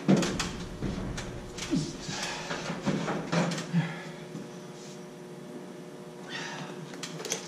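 A sheet of drywall knocking and scraping against the wall framing and metal door frame as it is forced into place, with a few short grunts. It goes quieter about four seconds in, leaving a steady hum.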